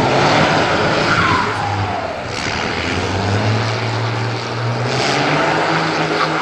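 Off-road trial truck's engine running hard under load as the truck climbs a steep, loose rocky slope. The engine note steps up about five seconds in.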